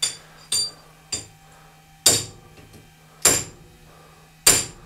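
Drill chuck being knocked down against a steel plate to seat it on its B10 taper arbor: a series of sharp metal-on-metal knocks, three light ones in the first second, then three heavier ones about a second apart.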